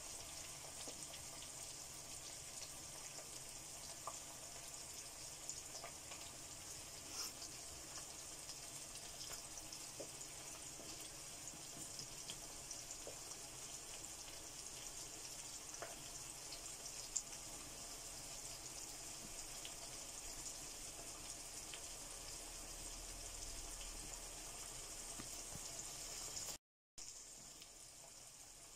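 Sliced onions and whole spices frying in oil in a non-stick wok: a steady, gentle sizzle with scattered small pops. The sound drops out briefly near the end.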